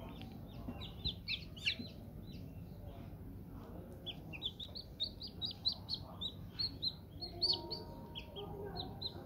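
Newly hatched Aseel chicks peeping: a steady run of short, high cheeps, several a second, busiest in the middle.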